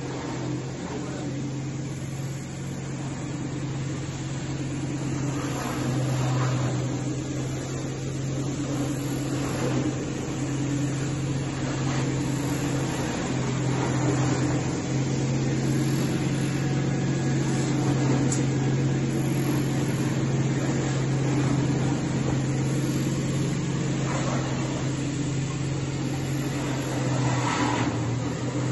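Fibre-opening machine running: a steady, strong low electric-motor hum over the rush of its blower as fluffy fibre is fed in and blown out. It grows a little louder after the first few seconds.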